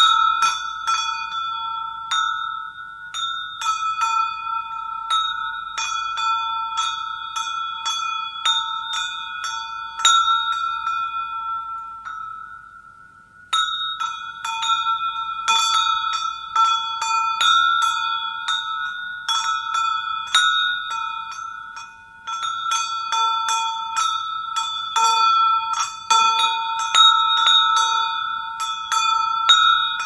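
Camel bell ringing, struck over and over in an irregular jangle of several strikes a second, each ring overlapping the last. The ringing fades away about twelve seconds in, starts again abruptly a second or so later, and dips briefly once more about twenty-two seconds in.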